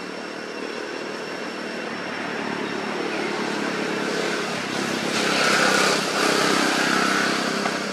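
A motor vehicle's engine running, growing louder to its peak about five to seven seconds in, then easing off a little.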